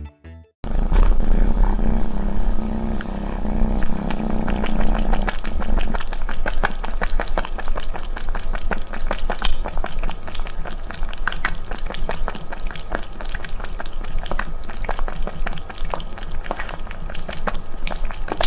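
Close-miked cat lapping water from a glass: a quick run of wet clicks, about three to four laps a second. A low steady rumble lies under it for the first few seconds.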